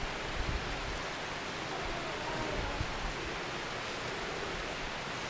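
Steady hiss of background noise, with a few faint low thumps near the start.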